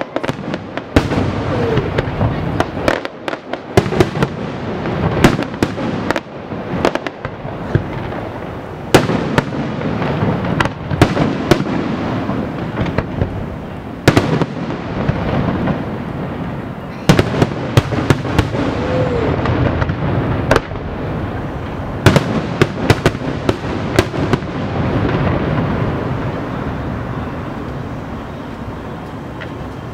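Aerial fireworks display: many sharp bangs of bursting shells over a continuous crackle and rumble, coming in dense volleys, then thinning out near the end.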